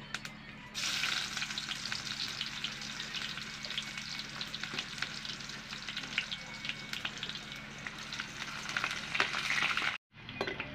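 Food frying in hot oil in a metal pan over a wood fire: a loud sizzle that starts suddenly about a second in as food goes into the oil, with scattered spitting pops, then cuts off abruptly near the end.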